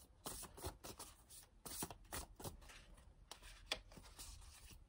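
Tarot cards being shuffled by hand: soft, irregular card clicks and rustles, several a second.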